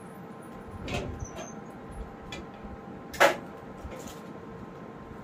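A wardrobe door being unlatched and swung open. One sharp click a little after three seconds in is the loudest sound, with a few fainter clicks and rustles of handling before it.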